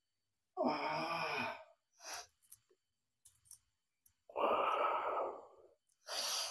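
A man's heavy, breathy exhales, three of them, each about a second long.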